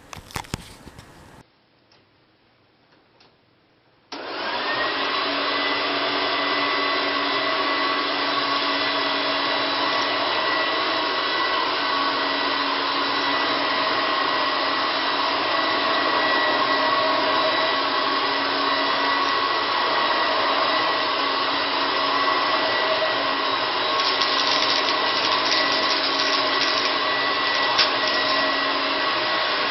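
A few handling clicks, then a homemade Vorwerk-based cyclonic upright vacuum cleaner switches on about four seconds in. Its motor whine rises quickly to speed and it then runs steadily with a high whine while it vacuums a dirty shag rug.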